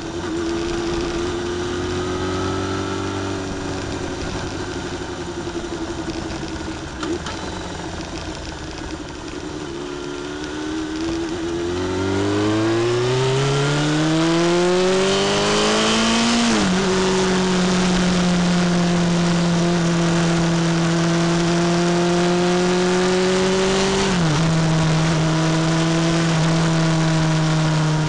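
Motorcycle engine heard while riding: it runs steadily at low revs, then accelerates hard with a rising pitch, shifts up with a sudden drop in pitch about two-thirds of the way in, and shifts up again near the end. Wind rush grows as the speed builds.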